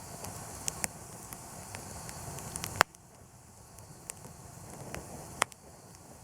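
Wood campfire crackling with scattered small snaps and two sharp pops, the loudest nearly three seconds in and another about five and a half seconds in.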